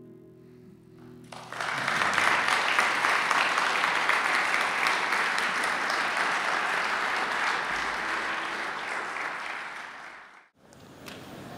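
The last notes of an acoustic guitar die away, then an audience applauds steadily for about nine seconds before the applause cuts off abruptly.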